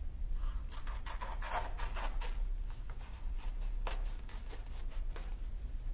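Large scissors cutting through a sheet of leatherette, with crisp snips and rustling of the material. The snips come thick and fast in the first half, then a few single ones follow.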